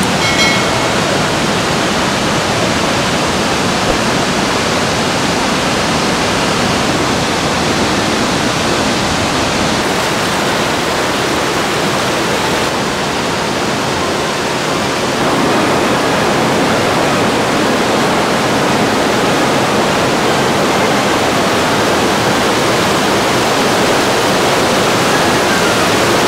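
Waterfall and fast-flowing river rapids: a steady, loud rush of white water, slightly louder from about fifteen seconds in.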